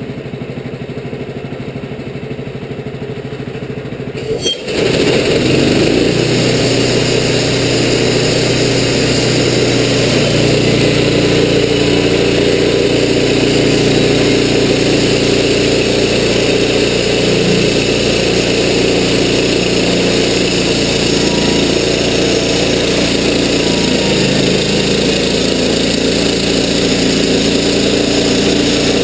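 Wood-Mizer LT15 portable bandsaw mill cutting through a western red cedar log. Its engine runs at a low idle, then about four and a half seconds in it speeds up and gets much louder. It then runs steadily while the band blade travels through the cut.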